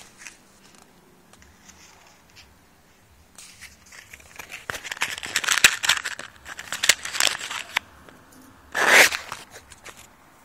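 Irregular rustling and crackling. It is densest from about four to eight seconds in, with one short, louder rustle near the nine-second mark.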